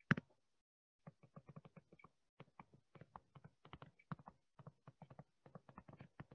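Stylus tapping and scratching on a tablet while handwriting: one click just after the start, then from about a second in a rapid, irregular run of faint short taps.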